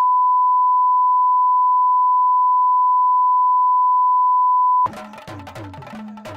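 Steady 1 kHz line-up test tone, a single unbroken pure beep, cutting off sharply about five seconds in; percussion-led music with drums starts right after it.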